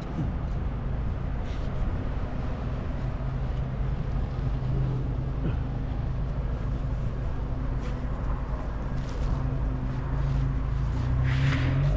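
City street ambience: a steady low rumble and hum of traffic and engines, with a few faint clicks.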